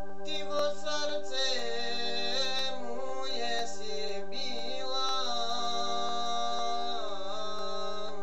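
Man singing a wavering, ornamented vocal line over a sustained electronic keyboard backing with an organ-like sound. A long held note slides down near the end.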